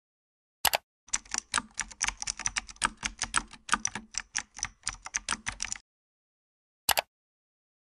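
Typing on a computer keyboard: a fast run of key clicks for about five seconds, with a single click shortly before it and another about a second after it stops.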